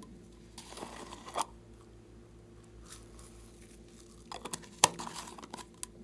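Lid of a small plastic jar being twisted off: a short plastic rasp ending in a sharp click about a second and a half in. Near the end the lid is twisted back on, with more scraping and a louder click.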